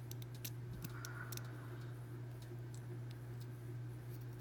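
Faint, scattered small metal clicks as the pins are taken out of the padlock's plug, over a steady low hum.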